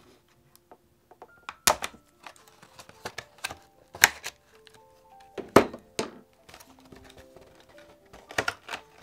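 Clear plastic blister packaging crackling and snapping as it is cut with scissors and bent open, with about five loud sharp crackles among smaller rustles, over soft background music.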